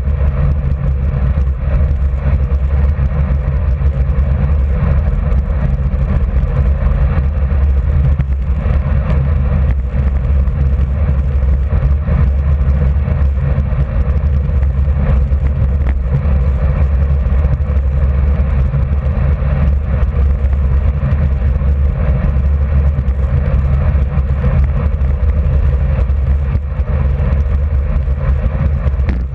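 Steady rush of wind on the microphone of a bike-mounted camera, with tyre noise on asphalt, as a road bike rides at about 42–48 km/h. The sound is a loud, deep, unbroken roar.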